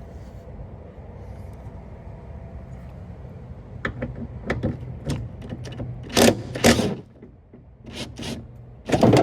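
Metal clicks and clunks as a Ford Super Duty's hood is unbolted from its hinges and worked loose, over a steady low hum. The clicks begin about four seconds in, with louder bangs and scrapes a couple of seconds later and again near the end.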